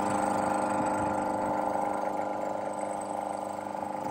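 Toshiba Bebicon air compressor running steadily: the electric motor belt-driving the two-cylinder piston pump, giving an even mechanical hum.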